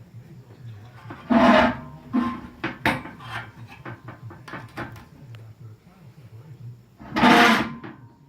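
Small metal stove parts clinking, knocking and scraping as they are handled, with a string of light clicks through the middle. Two louder rasping bursts come about a second and a half in and again near the end.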